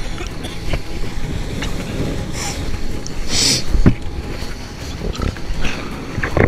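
Wind buffeting an action camera's microphone over the rush and splash of water as a board planes across choppy sea, with a louder hiss of spray about three and a half seconds in and a few low thumps as the board slaps the chop.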